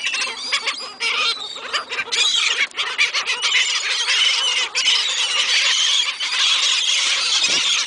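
A flock of seagulls calling loudly over one another, many overlapping squawks and squeals with no break, as the birds crowd in for thrown food.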